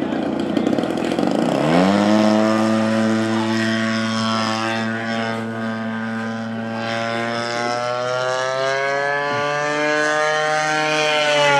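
Extreme Flight Extra NG 91" RC plane's GP 76 engine running at low throttle, then opened up sharply about two seconds in for takeoff. It holds a steady high-revving drone as the plane climbs away, its pitch dipping slightly and rising again.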